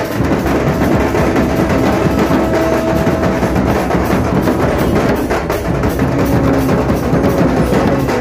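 A drum troupe beating many large steel-shelled drums with sticks in a fast, dense, unbroken rhythm, loud throughout. Faint held tones sound above the drumming.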